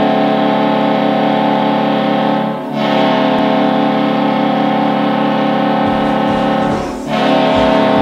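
Hockey arena goal horn sounding in long, loud blasts, a chord of several held tones, with two brief breaks about two and a half and seven seconds in. A low thumping beat starts underneath about six seconds in.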